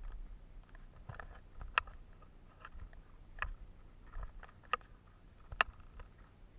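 Hikers' sandalled footsteps climbing down rock-cut stone steps: scuffs and a few sharp taps, four of them louder, spread unevenly over a faint low rumble.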